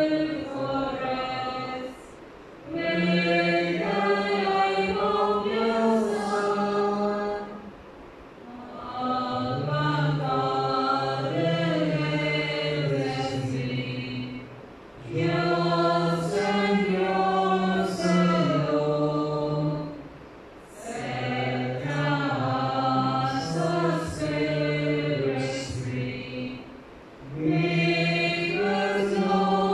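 A group of voices singing a church hymn in phrases of about five to six seconds, each broken by a short pause.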